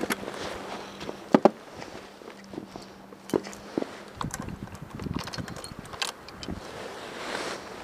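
Scattered clicks and knocks with some rustling, the loudest pair of knocks about a second and a half in, and irregular low thumps in the second half.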